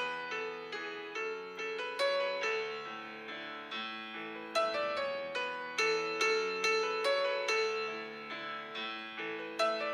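Background piano music: a gentle melody of single struck notes, each fading after it is played.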